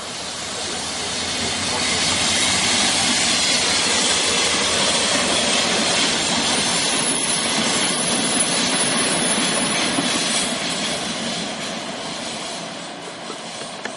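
MARC MP36 diesel-electric locomotive passing at speed at the head of a commuter train. The engine and wheel noise swell to loud over the first two seconds, hold, then fade steadily from about ten seconds in as the passenger coaches roll by and move away.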